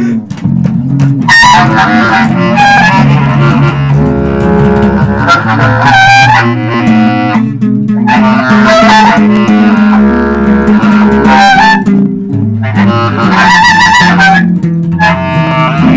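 Loose instrumental jam by a small amateur group: a low bass line runs under wavering, sustained melody notes from wind or synth-type instruments that come and go every second or two.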